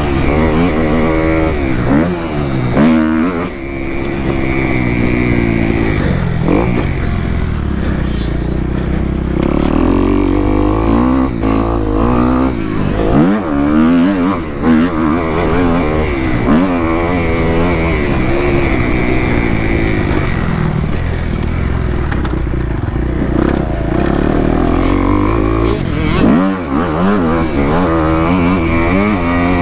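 Kawasaki KX250F four-stroke motocross bike engine, revved hard and backed off again and again as it is ridden around the track, its pitch climbing and dropping every few seconds, with gusty wind rumbling on the microphone.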